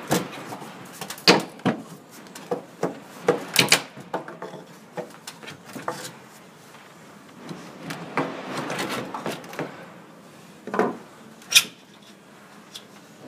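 Fir tabletop of an old kitchen table being worked loose from its base and lifted: scattered sharp wooden knocks and cracks, with a stretch of wood rubbing and scraping about eight seconds in.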